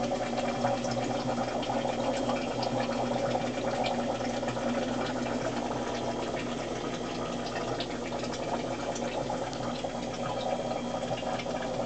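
Aquarium equipment running steadily: the hum of an air pump with water bubbling and trickling in the tank, dotted with faint ticks.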